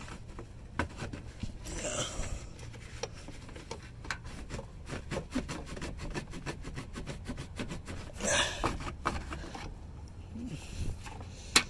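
Hand work under a car: a run of light clicks and rubbing, quickest and most even in the middle, with two short breathy hisses, as a gloved hand works at the oil filter and its plastic cover.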